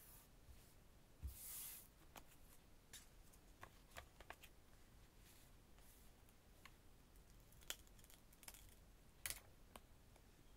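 Faint scattered ticks and taps of long fingernails and clear plastic stickers being handled and pressed onto a paper journal page, with a brief soft rustle about a second and a half in.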